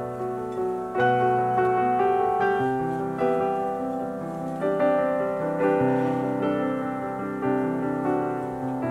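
Background piano music: slow, gentle notes and chords.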